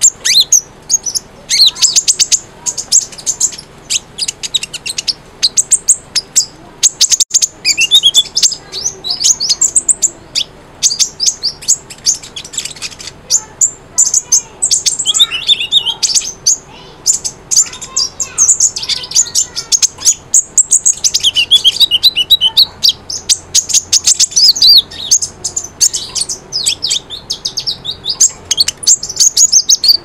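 Sunbird (kolibri) song: rapid, high-pitched chirps and short twittering trills with sharp ticks between them, going on without a break.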